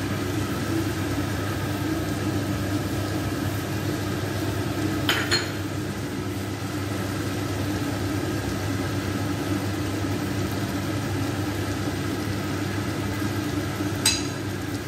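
Steady mechanical hum, with a metal spoon clinking twice against the karhai: once about five seconds in and once, ringing briefly, near the end.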